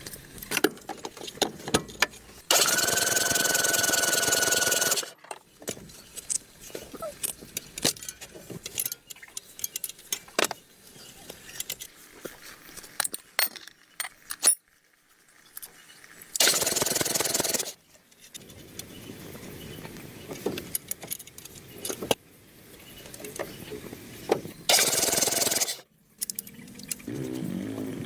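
Tools clinking and knocking during car repair work, with three short runs of a loud power tool. The first run spins up to a steady whine.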